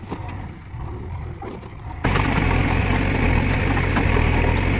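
JCB 3DX backhoe loader's diesel engine running as the loader works. About two seconds in the sound jumps abruptly to a much louder, closer engine sound that holds steady while the backhoe digs.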